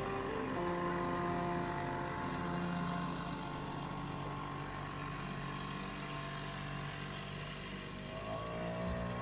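Small riverboat's engine running steadily as the boat passes, its pitch rising near the end.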